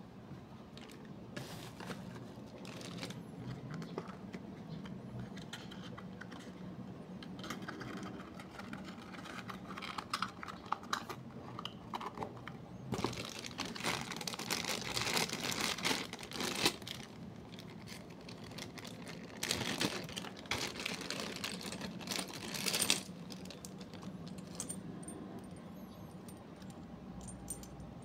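Clear plastic zip-lock bag crinkling and rustling as it is handled and opened, with scattered light clicks of small hard parts being handled. The crinkling grows louder in two spells, around the middle and again a little later.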